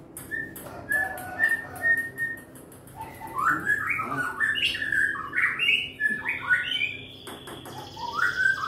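A bird chirping: a few short, evenly repeated notes, then from about three seconds in a quicker run of rising and falling calls.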